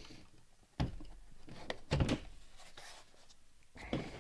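Large hollow plastic toy building blocks being shifted and set down on a desk: a few dull knocks, about a second in, around two seconds in and again near the end.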